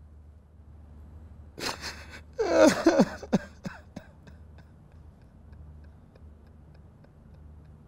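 A man sobbing: a burst of choked cries that fall in pitch, broken by sharp breaths, about two seconds in, then trailing off to faint breathing.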